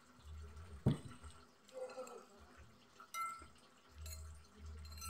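A drinking glass set down with a sharp knock about a second in, then a metal spoon clinking once against a glass plate with a brief ringing tone about three seconds in.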